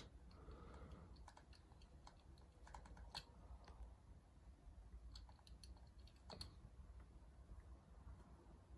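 Faint, scattered small clicks of hands handling the steel parts of a Bergeon Rollifit watchmaker's pivot lathe, with the sharpest clicks about three seconds in and just after six seconds.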